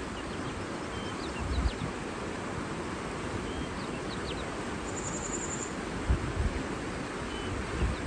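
Outdoor nature ambience: a steady rushing noise with faint, short bird chirps scattered through it. A brief high buzz comes about five seconds in, and low rumbles swell up twice, near one and a half seconds and near six seconds.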